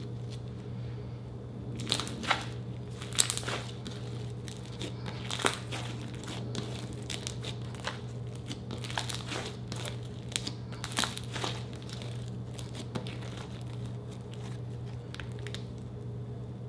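Pink glitter slime packed with small beads being stretched and squeezed by hand, giving irregular sticky pops and crackles in clusters. A steady low hum runs underneath.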